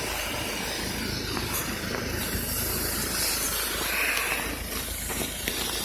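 Steady hissing noise with a low rumble under it, from a medical helicopter's turbine engines running on the ground.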